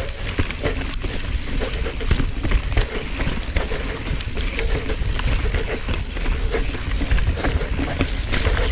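Mountain bike descending a rough, loose trail: a steady low wind rumble on the microphone, with tyres rolling over dirt and the bike rattling and clacking over rocks and roots.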